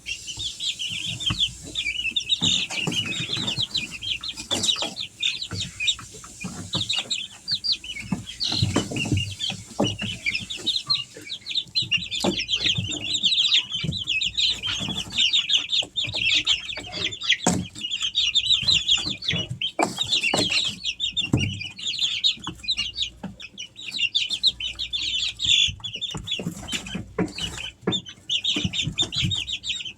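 A brood of three-week-old Easter Egger chicks peeping constantly, many short high chirps overlapping, with scattered soft knocks among them.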